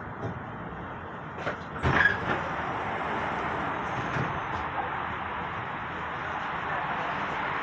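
Tram standing at a stop, a steady hum and hiss with cars passing outside. A quick run of clunks and knocks comes about two seconds in, the loudest sound here.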